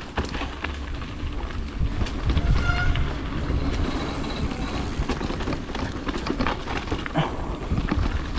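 Mountain bike riding down a dirt trail: a steady low rumble of tyres and wind on the microphone, with irregular clicks and rattles from the bike over rough ground.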